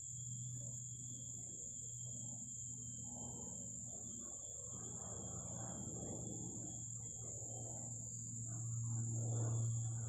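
Low, steady drone of an airplane passing overhead, with a wavering rushing noise that swells and is loudest near the end, under the constant high buzz of insects.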